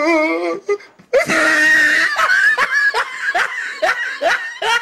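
Female cat in heat caterwauling, a drawn-out yowl that wavers in pitch, then a loud shrill cry about a second in: her mating call to the tom. After it a person laughs in short repeated bursts.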